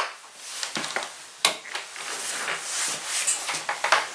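Rustling with a series of sharp clicks and knocks, the handling sounds of a door being unlatched and opened.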